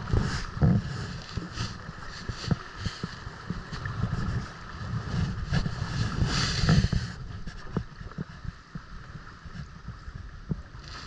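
Water splashing and sloshing around a kayak, with wind rumbling on the microphone; several sharper splashes in the first seven seconds, then it settles quieter.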